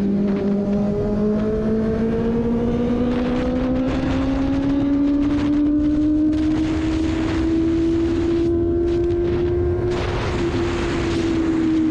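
Benelli 600i's inline-four engine pulling steadily under way, its note rising slowly as the bike gains speed in gear, then easing off a little near the end, over a steady rush of wind.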